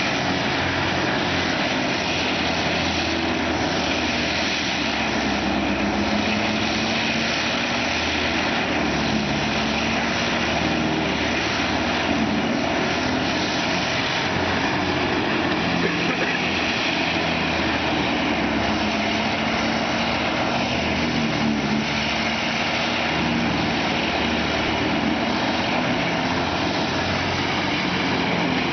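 Diamond Z DZT8000TKT track-mounted tub grinder running under load, grinding wood waste into mulch: a steady, loud engine drone mixed with a dense grinding rush.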